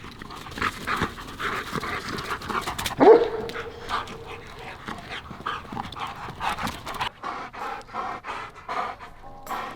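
A German Shepherd panting hard and fast in quick, even breaths, with one louder, sharper sound about three seconds in.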